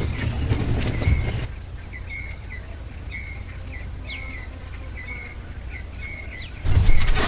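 A small bird chirping over and over in short, even notes, about one or two a second, over a low rumble. Tapping in the first second, and louder knocking and scraping near the end.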